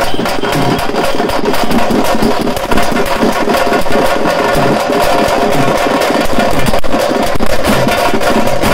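A street band's stick-played drums beating a fast, dense, unbroken rhythm for the procession dance.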